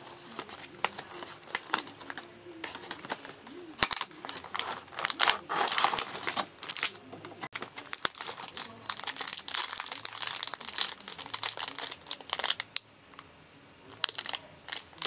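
Irregular crinkling and crackling of a cardboard biscuit box, its clear plastic tray and the plastic wrappers of individually packed biscuits being handled, densest about four to seven seconds in.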